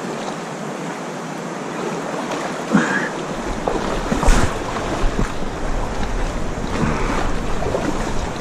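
River water rushing over a shallow rocky rapid, with the splashing of boots wading through it. Wind buffets the microphone from about three seconds in.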